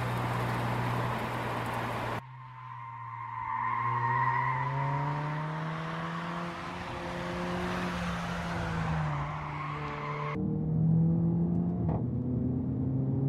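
Mercedes-AMG A45's turbocharged 2.0-litre four-cylinder engine running on track. The revs climb steadily for several seconds and drop back about nine seconds in, with abrupt jumps in the sound about two seconds in and near the end. A loud rush of noise sits over the engine for the first two seconds.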